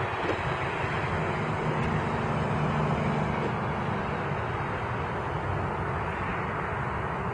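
Steady rumble and hiss of background road traffic. A low engine hum from one passing vehicle rises about one and a half seconds in and fades about four seconds in.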